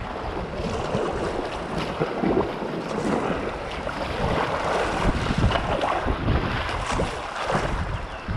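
Kayak paddle strokes splashing in river water, surging about once a second, with wind rumbling on the camera microphone.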